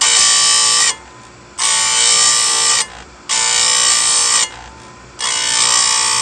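Chainsaw chain grinder's abrasive wheel grinding a chain cutter tooth in four passes, each a loud, high-pitched grinding whine about a second long, with short quieter gaps between as the wheel is lifted off the tooth.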